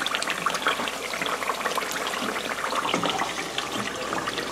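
Coconut cream boiling down in a pan, a steady dense bubbling and crackling: the cream is being cooked until the oil separates out.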